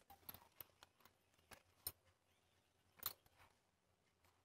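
Faint handling sounds: a handful of short clicks and soft rustles as paper canvas and cloth are moved and smoothed by hand, with a slightly longer rustle about three seconds in.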